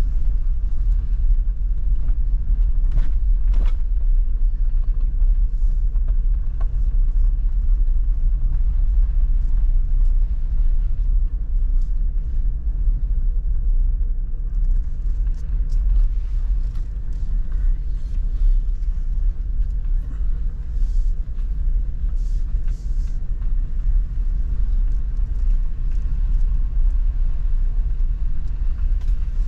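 Steady low rumble of an electric car driving, tyre and road noise with no engine sound, with scattered light clicks over it.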